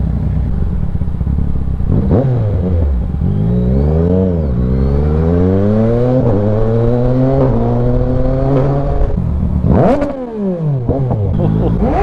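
Yamaha Tracer 900 GT's three-cylinder engine pulling away from a stop and accelerating, its note dipping and climbing again in several steps as it shifts up. Near the end the revs rise and fall sharply once, then climb again.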